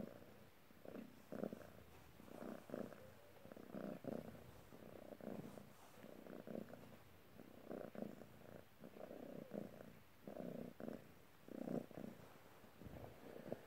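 Maine Coon cat purring steadily, swelling and fading with each breath, about once or twice a second.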